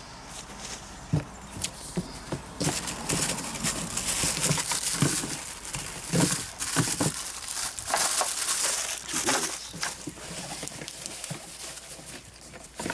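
Packaging being handled while parts are unpacked from a cardboard box: irregular rustling and crinkling, with scattered light knocks of parts against the box.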